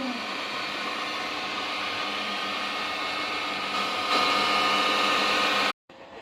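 Shoe-turning machine spinning its newly made shaft at about 2000 RPM on a test run: a steady whir with a faint whine. It is warm after several minutes but can still be touched. The sound cuts off suddenly near the end.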